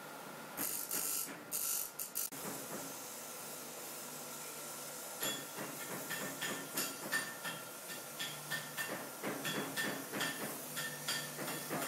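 Bench grinder wheel grinding a small cast brass piece in a few short strokes during the first two seconds. Then a gas torch flame hisses steadily as a joint in a brass ornamental band is heated, with many irregular sharp clicks from about five seconds on.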